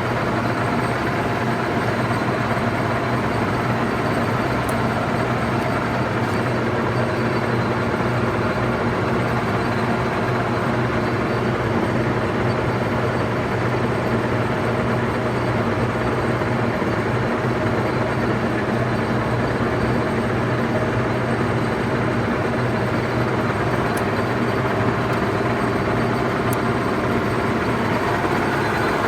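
1M63 screw-cutting lathe (1973) running idle with no workpiece: spindle and gearbox turning with a steady, even hum holding several constant tones.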